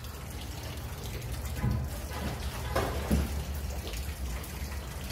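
Marina water sloshing and lapping around the dock pilings: a steady crackling wash of water noise over a low rumble.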